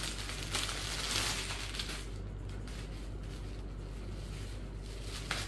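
Clear plastic packaging rustling and crinkling as a folded cotton saree is slid out of it, for about the first two seconds. After that a low steady hum remains, with a single click near the end.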